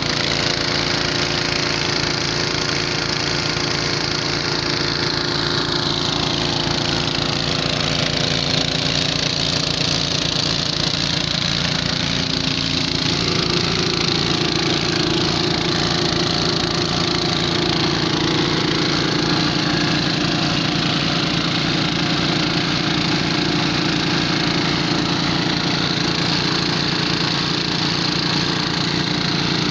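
Two portable generators running steadily, their engines chugging evenly as they power a submersible pump draining a sump.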